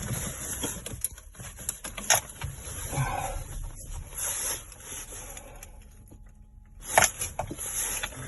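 Ford Transit 2.5 TDI four-cylinder diesel engine running on a cold start at −3 °C after standing for six days. It runs as a steady low rumble, with a couple of sharp clicks about two seconds in and near the end.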